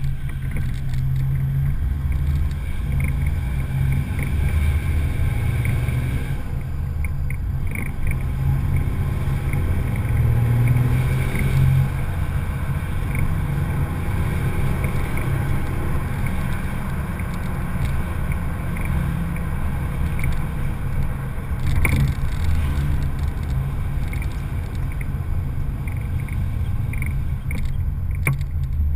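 Toyota Land Cruiser HDJ80's turbodiesel straight-six and exhaust, driven hard, with road and wind noise, picked up by a camera on the bumper just above the road. The low engine rumble swells and eases repeatedly, and there is one sharp knock about two-thirds of the way through.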